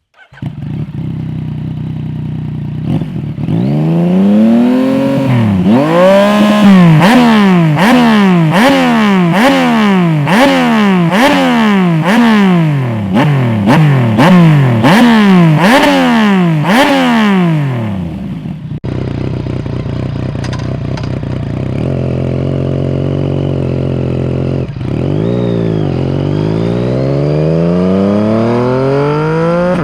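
Yamaha MT-09 SP's three-cylinder engine through an SC-Project full exhaust with the dB killer fitted. It idles, then is blipped in quick revs about once a second, each rising and falling. After an abrupt change about two-thirds in, it idles again, and the revs climb steadily near the end.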